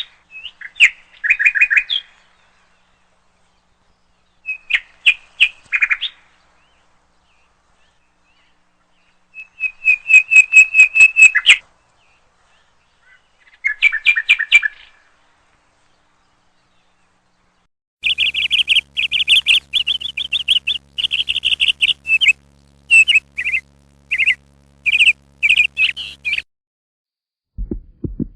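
A bird calling in bouts of rapid, repeated high chirps with silent gaps between them. The longest and densest bout comes in the second half. A low throbbing starts just before the end.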